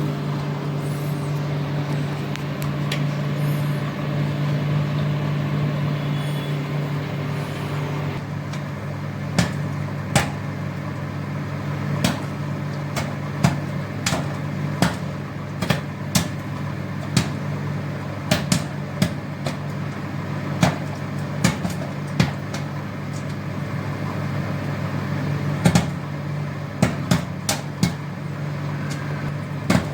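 Microwave oven running with a steady hum while popcorn kernels pop inside it: irregular sharp pops begin about eight seconds in and come more often toward the end.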